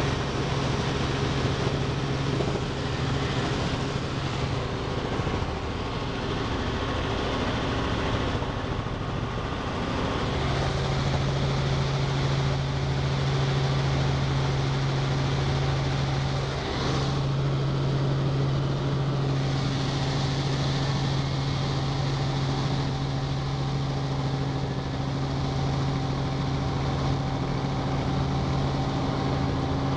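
Robinson R44 II helicopter in cruise heard from inside the cabin: the steady drone of its rotors and six-cylinder Lycoming piston engine, with a constant low hum under it.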